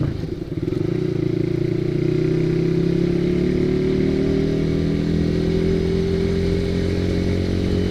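Honda CB150R's single-cylinder engine with an aftermarket racing exhaust, running under way. Its pitch climbs slowly as the bike gains speed, then falls away near the end as the throttle closes.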